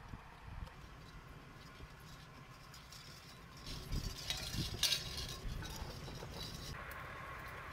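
Eggs clinking against each other and against the blackened pot as it is set down on a wood fire, a quick cluster of sharp clinks and knocks about four to five seconds in. Near the end a steady hiss takes over.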